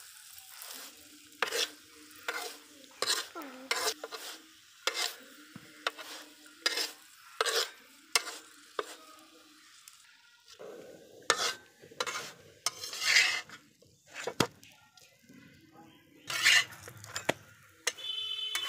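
Metal spatula repeatedly pressing and scraping a paratha against a hot iron tawa, short strokes about once a second, with the oil sizzling under the flatbread. The scraping grows denser and louder about halfway through.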